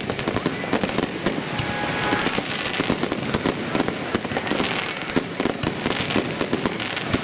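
Fireworks display heard at close range: many aerial shells bursting in rapid succession, a dense, unbroken barrage of bangs and crackling.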